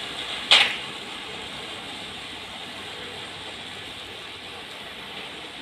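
Massey Ferguson 3070 tractor working a mower at a distance, a steady mechanical clatter. A short, loud burst of noise comes about half a second in.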